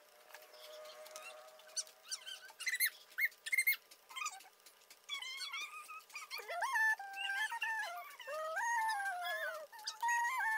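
An animal's high, wavering whines: short squeaks at first, then from about halfway on a continuous whining that slides up and down in pitch.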